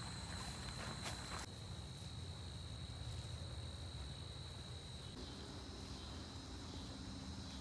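Insects chirring in a steady high trill, with a few soft steps or rustles in the first second and a half.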